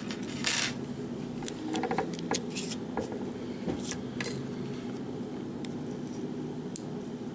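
Scattered small metallic clicks and clinks of lock pins and springs dropping out and being handled as a pin-tumbler lock core is disassembled.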